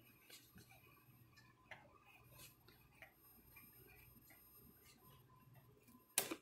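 Faint, scattered ticks and light scraping from a slotted 1-inch plastic forming block being worked along the edge of an aluminium wing skin to bend the leading edge, over a low steady hum. A sharper click comes near the end.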